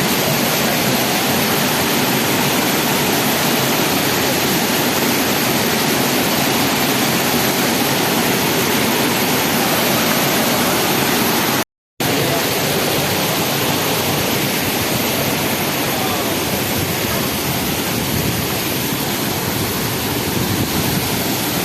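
Waterfall crashing close by, a steady loud rush of falling water. It drops out for a split second about twelve seconds in.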